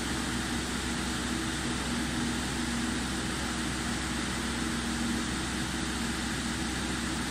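Steady rush of air from an Audi A6 C6's climate-control blower running at a high fan setting, with the engine idling underneath as a faint low hum.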